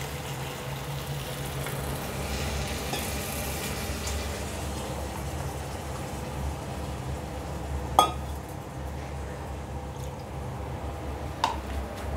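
Water poured into a hot pan of chicken masala, then the curry sizzling in the pan over a steady low hum. A sharp knock about eight seconds in and a lighter one near the end.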